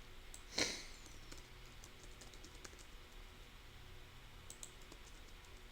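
Faint, scattered clicks of a computer keyboard, with one louder short sound about half a second in.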